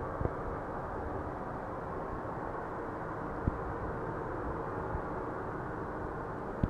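Steady, muffled droning hum with many faint held tones and three faint knocks. This is the unexplained 'strange sound from the sky' that the recording was made to capture.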